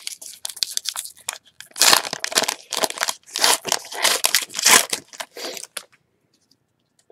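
Foil wrapper of a hockey card pack being torn open and crinkled by hand: a run of quick crackles that stops about six seconds in.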